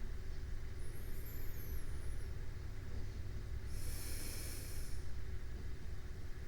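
Slow breathing of a person asleep, close to a binaural microphone: one breath, a soft airy hiss, comes a little past the middle, over a steady low hum.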